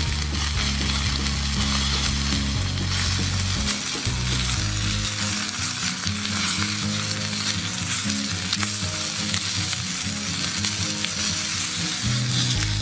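Steak searing in a black pan over an open wood fire, sizzling steadily.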